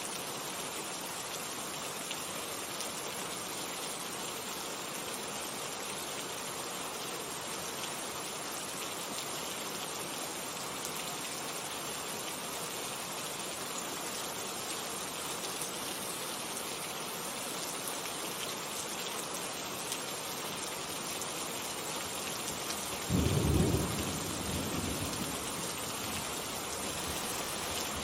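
Steady rainfall, with a single low rumble of thunder rising suddenly late on and dying away over a few seconds.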